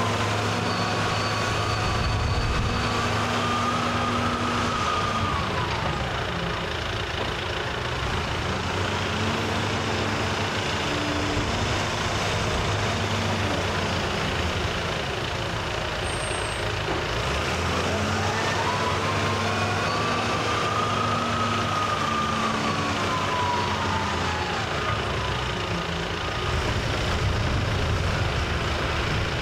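Heavy diesel engine of a front-end wheel loader running and revving up and down as it works. A whine rises and falls with the engine twice.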